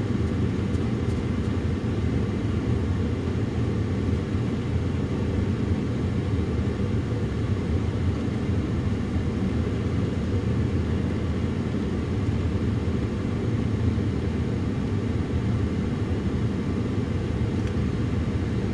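Steady low rumble of a vehicle, even throughout with faint hiss above it and no distinct events.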